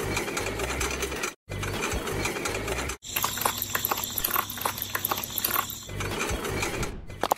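Mechanical whirring and rapid clicking like small gears and a ratchet, in stretches that cut off suddenly about one and a half and three seconds in. From about three to six seconds a thin high whine runs over the clicking.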